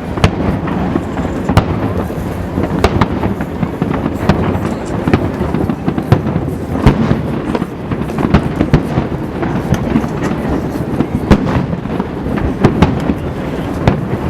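Fireworks display: aerial shells bursting in quick, irregular succession, with sharp bangs over a continuous rumble of booms and echoes.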